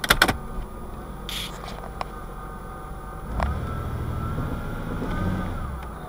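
Jeep Cherokee XJ's 4.0 straight-six idling cold, heard from inside the cab, with a few sharp clicks at the start and another click about three and a half seconds in, after which the engine note grows deeper and stronger as the Aisin AW4 automatic is put into gear on the brake. It does not rattle: the cold knock, which the owner suspects comes from loose flexplate bolts, is not heard at idle.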